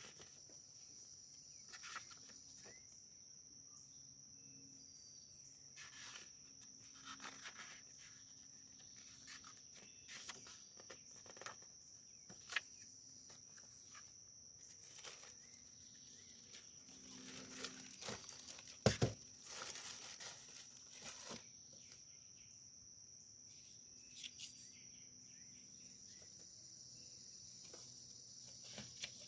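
Crickets chirping steadily in the background, a constant high-pitched trill, with scattered soft clicks and rustles of handling and one sharper click about two-thirds of the way in.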